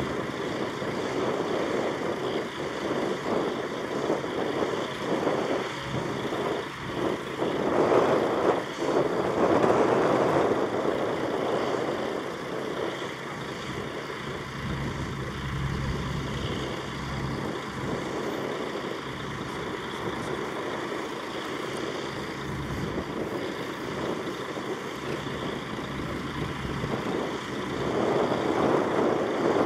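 Heavy vehicle engines running, with louder swells as vehicles pass about eight seconds in and again near the end.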